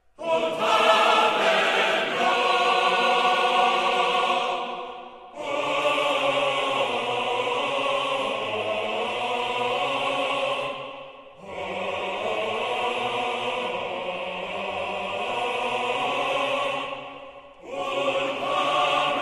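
Choral music: a choir holding long sustained chords in phrases of about six seconds, each breaking off briefly before the next begins.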